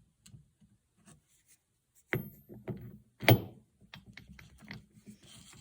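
A machined metal drive adapter being test-fitted into a large socket: metal parts clunking and scraping together, with two sharp knocks about two and three seconds in. The fit is snug, with little to no slop.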